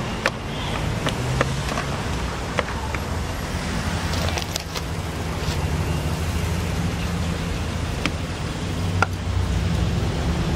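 Scattered sharp clicks and knocks of plastic engine-bay trim covers being handled and clipped into place, over a steady low rumble.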